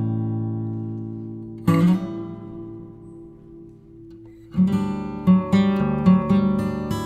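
Background music on acoustic guitar: strummed chords left to ring and fade, then quicker plucked notes from about four and a half seconds in.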